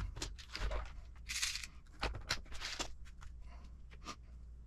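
Small hard plastic kit parts and hand tools being handled and set down on a workbench mat: a string of light clicks and taps, with a short rustle about a second and a half in.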